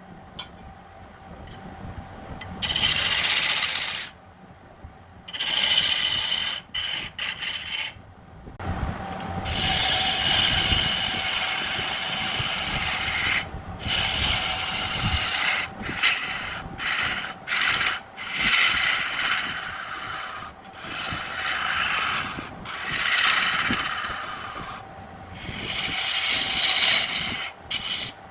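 Wood lathe spinning a large burl while a tool scrapes across the wood, a coarse rasping noise. It comes in stretches of a few seconds that start and stop abruptly.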